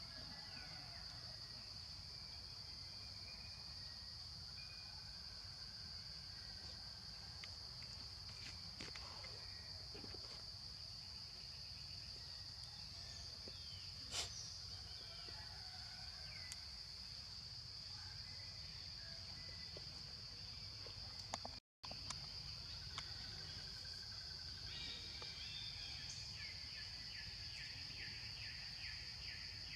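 Insects droning steadily at a high pitch, with a few faint chirps in the middle. A rapid pulsing trill joins in near the end, and the sound drops out for an instant about two-thirds of the way through.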